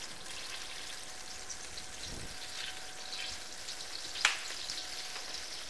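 Olive oil and margarine heating in a stainless steel pressure-cooker pot, sizzling and crackling steadily as the fat comes up to searing temperature. There is one sharp clack a little past the middle.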